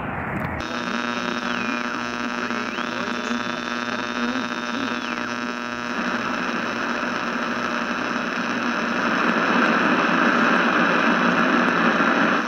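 Added outro audio of a steady buzzing hum, with a high whistling tone that slides down, back up and down again. About six seconds in, a louder static hiss joins it.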